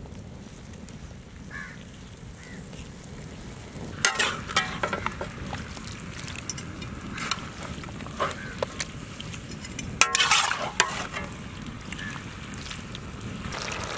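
Chicken being stirred in a large iron kadai as it fries, with the ladle scraping and knocking against the pan. The scraping comes in two bouts, about four seconds in and about ten seconds in.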